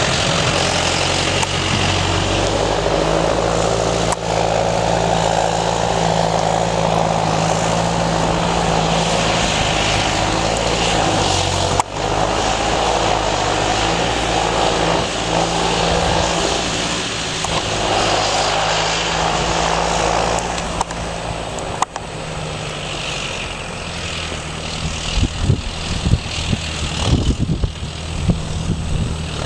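Farm tractor's diesel engine running steadily under load as it pushes snow with a front snow pusher. Irregular low thumps break in over the engine near the end.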